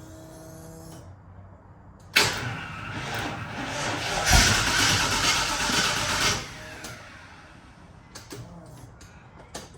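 Holden V8 engine being cranked over on the starter, a loud burst that lasts about four seconds before stopping, as the engine is started for the first time after a rebuild.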